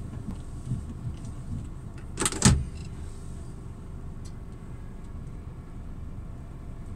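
Scania truck engine idling with a steady low rumble, heard from the cab. A short burst of loud knocks comes about two and a half seconds in.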